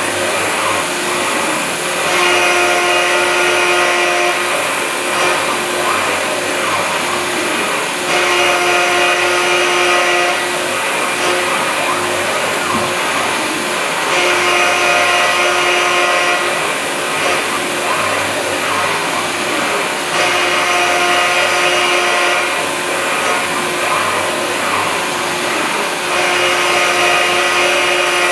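MillStep PA1070V3 CNC milling machine with its spindle running steadily while an end mill cuts into an aluminium block. About every six seconds a cutting pass brings in a ringing, pitched tone for roughly two and a half seconds, then drops back to the spindle's running noise.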